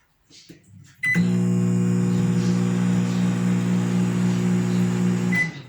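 Consul CM020 microwave oven running with a loud, steady buzz that starts about a second in and stops near the end, with a short high tone as it starts and as it stops. It is the noise of a failed magnetron: the oven makes this loud noise and does not heat.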